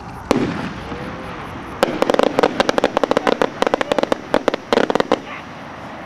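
Hand-made skyrocket display: one sharp report about a third of a second in, then a rapid, uneven run of a dozen or more sharp cracks from about two to five seconds in as the rocket's heading breaks.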